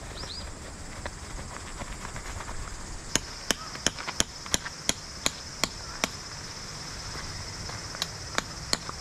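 A metal tent stake being hammered into gravel ground: a run of about nine sharp strikes, about three a second, then after a pause three more near the end.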